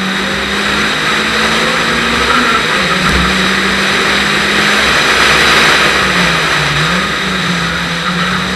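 Renault Clio RS rally car's engine running hard at speed, with a steady rushing noise beneath it. The engine note holds steady but dips briefly about three seconds in and again, more deeply, around seven seconds in.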